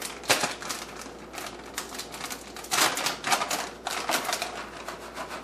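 Plastic bag of shredded cheddar cheese crinkling and rustling as it is handled and opened, a string of irregular crackles.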